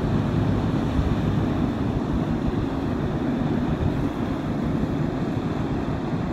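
Steady low rumble of a passing inland motor cargo ship's diesel engine, mixed with wind buffeting the microphone and choppy river water.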